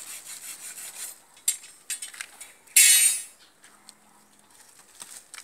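Handling of a decayed wooden coffin and its brittle lining: scattered clicks and knocks of wood and debris being moved, with one louder, short rustling-scraping burst about three seconds in.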